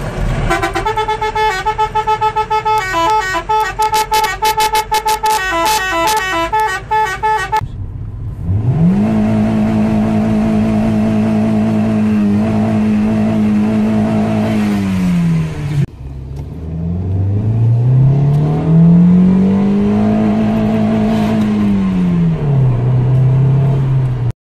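A musical car air horn plays a short tune of stepped notes. Then a car engine is revved up and held at high revs near the redline for several seconds, drops back, and is revved up and held high once more before settling lower.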